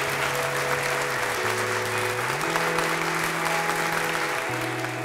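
Audience applauding steadily, with slow background music of long held notes underneath.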